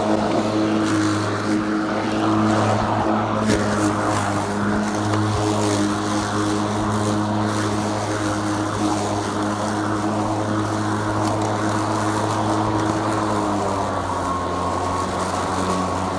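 Greenworks Pro 80V cordless push mower's brushless motor and blade running, a steady hum; its pitch drops slightly a few seconds before the end.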